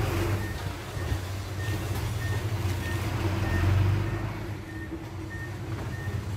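Dump truck's diesel engine running at low speed as it reverses, its reversing alarm giving short high beeps about one and a half times a second. The engine swells a little about four seconds in, then eases.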